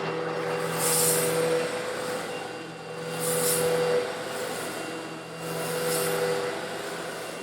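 An old Eureka vacuum cleaner runs steadily while sucking up small coarse stone granules, slightly larger than sand. A gritty high hiss swells three times, about every two and a half seconds, as the granules are drawn in.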